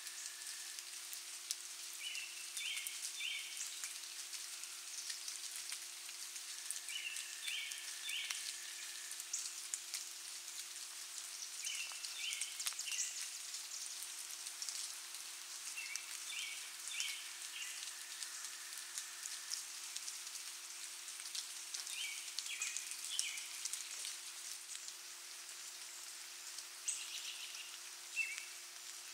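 Night-time insect chorus: a steady high shrill hiss, with a short call of about three notes repeating roughly every five seconds. A steady low hum runs underneath.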